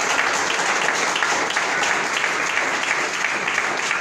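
Congregation applauding: dense, steady clapping from many hands.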